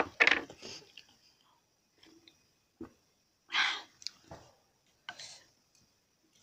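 A short laugh dies away, then two sharp, breathy puffs about a second and a half apart, with a few faint clicks from mouths and mugs, between sips of water.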